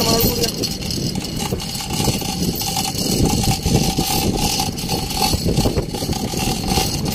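Fishing boat's engine running steadily at idle.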